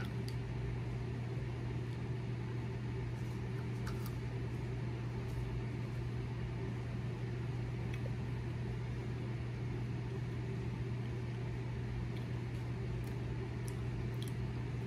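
Steady low mechanical hum, with a few faint ticks scattered through it.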